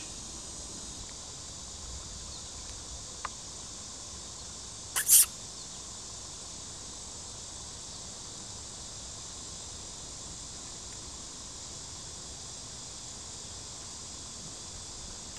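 Steady, high insect chorus, typical of summer crickets. A single short, sharp, loud sound about five seconds in.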